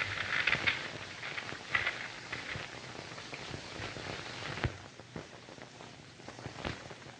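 Crackle and scattered sharp clicks of a worn optical film soundtrack. The crackle is densest in the first two seconds, and there is one loud click about four and a half seconds in.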